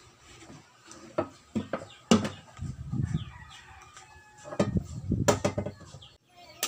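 A series of knocks and thumps as a 15-inch Joson speaker driver is set and handled inside a wooden speaker cabinet, loudest around two and five seconds in. A chicken clucks faintly in the background.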